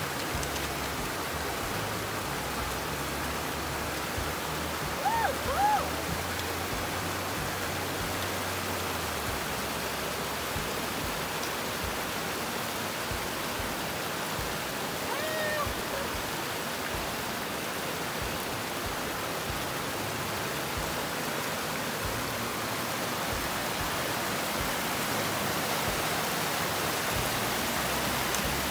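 Small mountain creek rushing steadily over rocks and a little cascade. Two brief high chirps stand out about five seconds in, and a fainter one comes near the middle.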